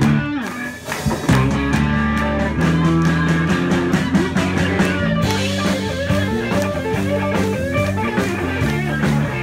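Rock band music: electric guitar over a bass line and a steady drum beat, with the cymbals getting brighter about five seconds in.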